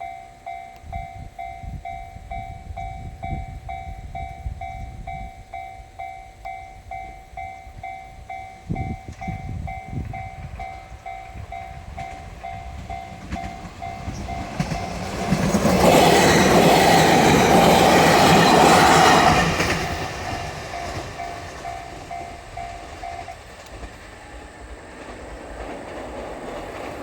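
Japanese level crossing alarm ringing a steady repeating ding-ding while a JR Kyushu 813 series three-car electric train passes through at speed. The rush of the train's wheels and motors swells and stays loud for about four seconds past the middle, then fades. Near the end the crossing bell stops.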